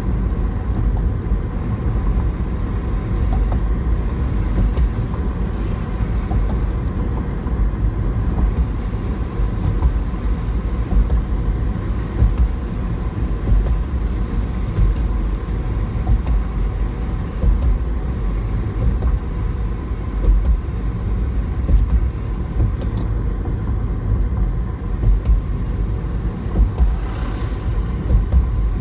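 Steady low rumble of a car driving along a road, heard from inside the cabin: tyre and road noise with the engine underneath.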